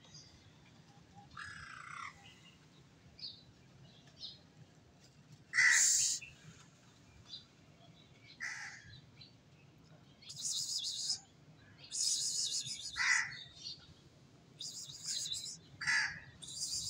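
Crows cawing repeatedly, harsh calls a second or a few seconds apart, the loudest about six seconds in, with a few fainter bird chirps between them.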